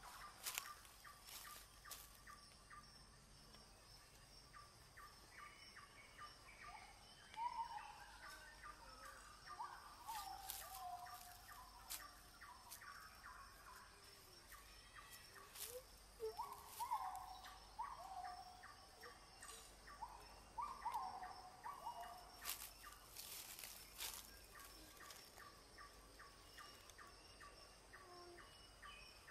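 Faint birdsong: short falling chirps repeated in loose runs, over scattered clicks and a steady faint high whine.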